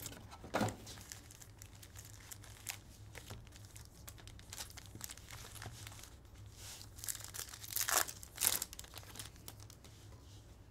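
Foil trading-card pack wrappers being handled and torn open by hand: crinkling and crackling throughout, with the loudest tearing about half a second in and again around seven to eight and a half seconds.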